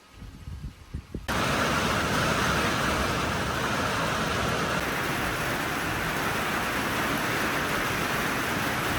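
Steady rushing noise of a vehicle being driven, starting abruptly about a second in, after a few faint knocks.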